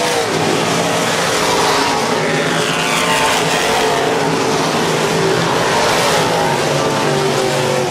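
Several dirt-track stock cars racing around the oval, their engine notes overlapping, with the pitch dropping away near the start and climbing again a few seconds in as cars go by.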